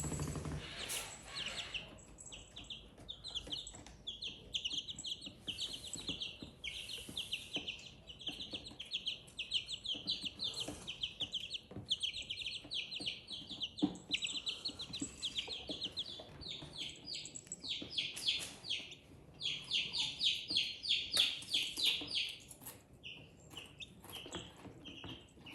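Baby silkie chicks peeping: a dense stream of high, rapid cheeps with only short pauses, thinning out near the end.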